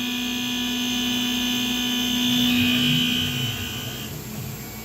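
Tormach 1100 CNC mill cutting 6061 aluminium with a half-inch four-flute high-speed steel end mill at 3,600 RPM, a steady whine with a low hum under it. The tones drop away about three to four seconds in, leaving a quieter hum. This is the first test cut after a spindle rebuild, and the operator judges that the spindle sounds halfway decent.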